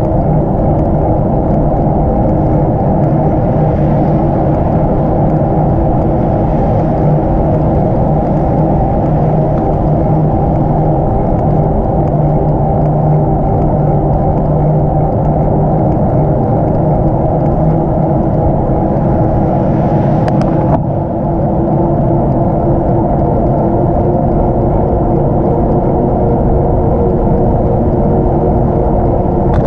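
Steady rush of wind and road noise on a moving cyclist's camera microphone, heavy and low, with a faint hum of traffic under it. A brief click and short dip about two-thirds of the way through.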